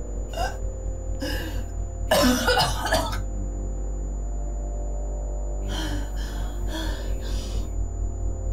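A woman coughing and gasping for breath in fits, the coughing of a severe asthma attack. There are two short coughs, then a long, harsh coughing fit about two seconds in, then several more coughs near the end, over a low, steady drone.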